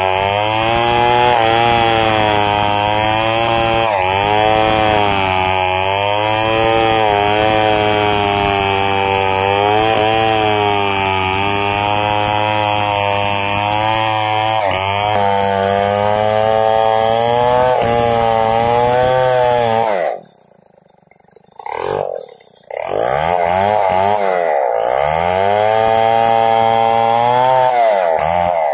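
Stihl 070 two-stroke chainsaw running under load as it rips lengthwise through a squared timber, its pitch wavering with the cut. About twenty seconds in the sound drops away for about two seconds, then the saw runs again.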